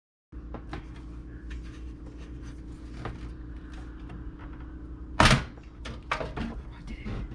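Objects being handled in a small room: light clicks and knocks over a steady low hum, with one loud thunk about five seconds in and a few smaller knocks after it.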